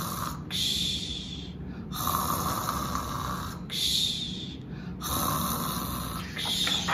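A person imitating snoring, with slow, even snores in alternating breaths in and out, about three full cycles of a second and a half or so per breath.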